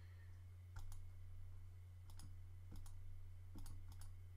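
Computer mouse clicking, about five sharp clicks spread over four seconds, over a steady low electrical hum.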